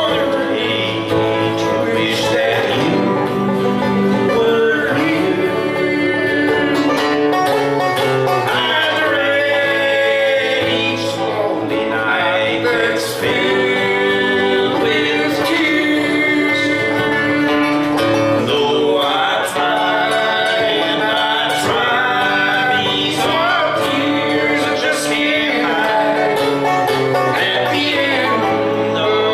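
Acoustic guitar and banjo playing a country song together, the guitar strummed and the banjo picked in a bluegrass style.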